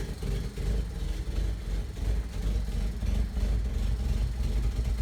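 Rebuilt carbureted four-cylinder engine of a 1979 Toyota Corolla wagon idling steadily.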